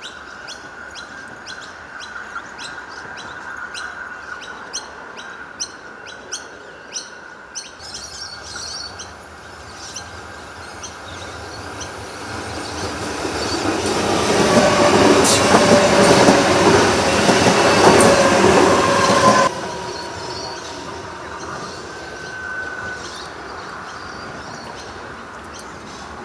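Adelaide Metro 4000-class electric train passing close by at speed: a rush of wheels on the rails that builds up, stays loud for about five seconds, then cuts off suddenly.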